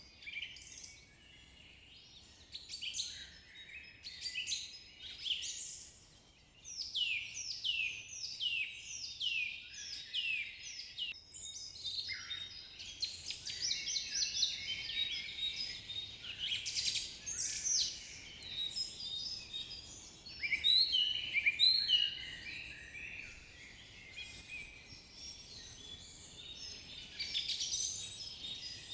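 Several songbirds singing, a dense mix of chirps and trills with runs of quick, steeply falling whistled notes.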